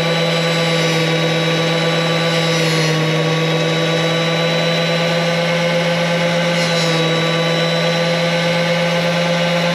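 Electric grinder fitted with a buffing wheel, its motor running at a steady speed with a constant hum.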